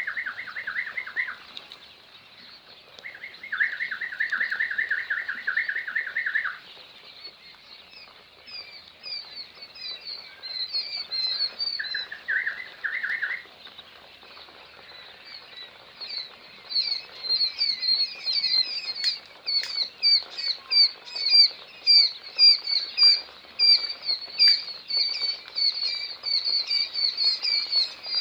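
Day-old white quail chicks peeping: many short, high chirps that grow dense and come about two a second in the second half. Three bursts of rapid, lower trilling come in the first half.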